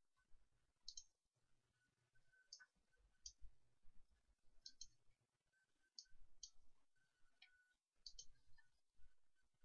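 Faint computer mouse clicks, single or in quick pairs, about one a second.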